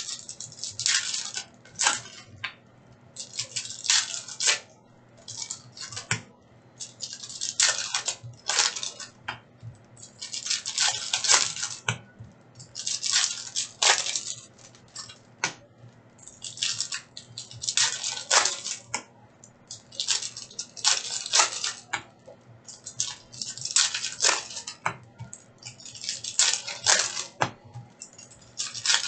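Foil trading-card pack wrappers being torn open and crinkled by hand, pack after pack, in irregular bursts of crackling rustle every second or two.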